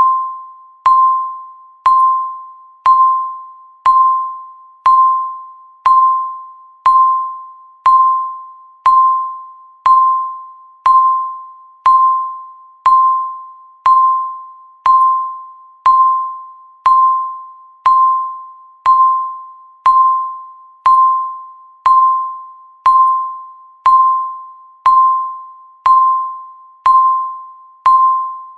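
Countdown timer's once-a-second chime: a single clear bell-like tone that starts sharply and fades away before the next one, evenly repeated, marking each second of the countdown.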